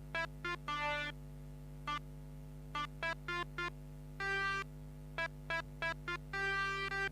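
Pianika (melodica) playing a telolet bus-horn tune: quick runs of short staccato notes, each run ending on a longer held note, over a steady low hum.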